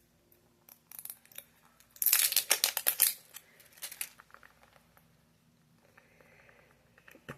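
Plastic packaging crinkling and tearing as a mini-figure capsule is opened, with a dense burst of rustling for about a second around two seconds in and scattered clicks before and after.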